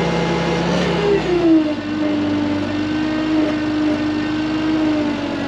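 Engine running steadily, then revving up to a higher speed about a second in and holding there.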